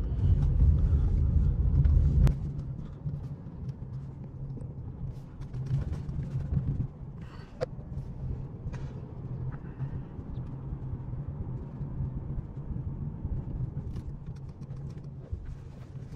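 Low engine and road rumble of a Mercedes-Benz C180 driving slowly, heard from inside the cabin. It is louder for the first two seconds or so, then steadier and quieter, with a few faint clicks.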